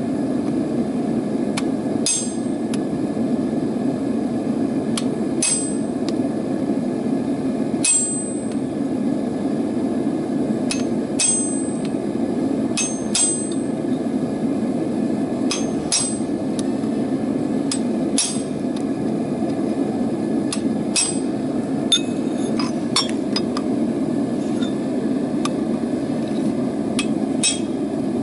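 Hammer blows on steel at the anvil while forging half-inch rebar: single and paired ringing strikes at irregular intervals of a second or two. Under the strikes runs a steady rushing noise.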